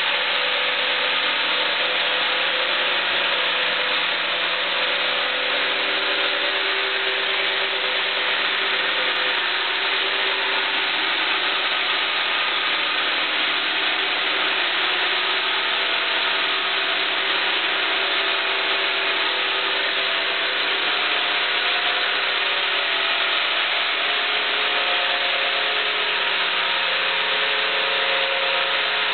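Sawmill headrig saw running and sawing a large keyaki (Japanese zelkova) log on its carriage: a loud, steady, unbroken machine noise with a few faint steady tones in it.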